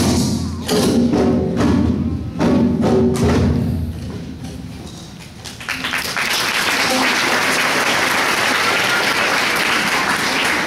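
A children's choir with wooden Orff xylophones and percussion plays the end of a song, which dies away about four or five seconds in. About six seconds in, a steady crowd noise starts and carries on.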